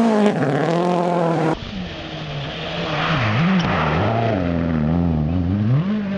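Ford Focus WRC rally car's engine revving hard as it is driven past, its pitch rising and dropping repeatedly through gear changes and throttle lifts. A cut about a second and a half in brings a second pass of the same car.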